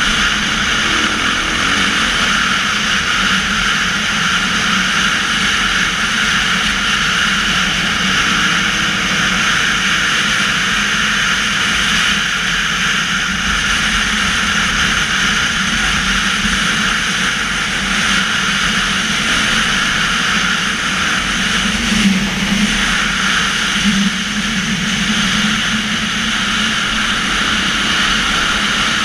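Dirt bike engine running steadily under way on a sandy track, heard from a camera mounted on the bike, with steady wind and road rush over it. Two brief knocks stand out about two-thirds of the way through.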